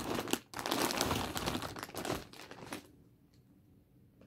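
Paper gift bag and wrapping rustling and crinkling as a gift is pulled out, stopping about three seconds in.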